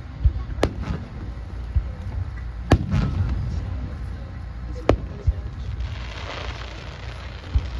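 Fireworks display: three sharp bursting cracks about two seconds apart over a constant deep rumble of booms.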